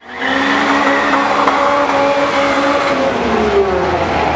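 Drag cars' engines at the start line, one held at steady raised revs for about three seconds, then falling in pitch as the revs drop near the end.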